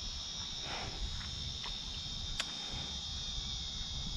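Steady high-pitched chorus of insects, with a few light clicks and handling noises from the rod and reel as the baited line is cast out, the sharpest click about two and a half seconds in.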